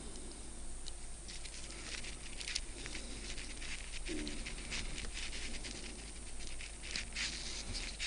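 Faint, scattered small clicks and scratches of fingers handling a cordless drill's small electric motor and its brush holder.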